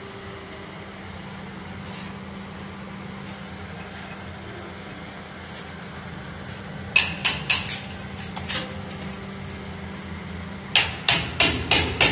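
Hammer blows in two quick runs: about five a little past the middle, then about eight at roughly five a second near the end, with a faint ringing after each strike.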